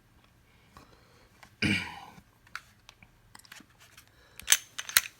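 Smith & Wesson M&P 2.0 pistol being handled: faint clicks and a short vocal sound about two seconds in, then two sharp metallic clacks about half a second apart near the end, as the pistol's action is worked to show it is clear.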